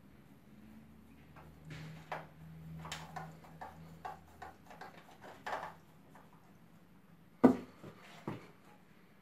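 Clicks and light rattles of a screwdriver and small plastic and metal parts being handled at the side frame of an opened Xerox WorkCentre copier, with one sharp knock about seven and a half seconds in and a lighter one just after.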